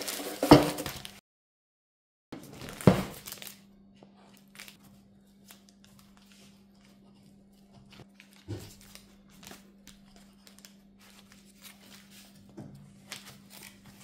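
An air fryer basket knocked down onto a wooden chopping board, and another hard knock about three seconds in. Then quiet crinkling of baking paper and a few soft knife taps on the board as a baked quiche is cut, over a steady low hum.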